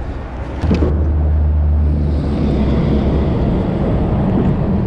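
Steady low rumble of road traffic on the bridge overhead, growing louder about a second in, with a sharp click just before.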